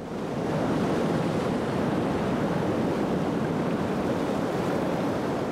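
Sea waves washing steadily on the shore, fading in at the start.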